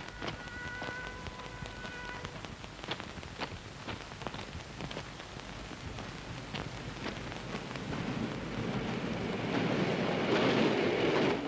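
A distant train horn held for about two seconds over scattered crackles and ticks, then the rush of an approaching train building from about eight seconds in and cutting off abruptly near the end.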